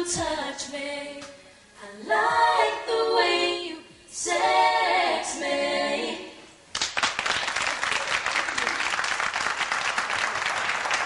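Female R&B vocal trio singing three closing phrases in close harmony with almost no backing, then about two-thirds of the way through an audience breaks into applause that cuts in suddenly and runs on steadily.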